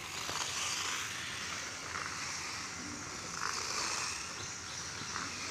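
Small battery-powered robot race car running across a tiled floor: its electric drive motors and wheels give a steady hiss that swells and fades, with a few short high squeaks.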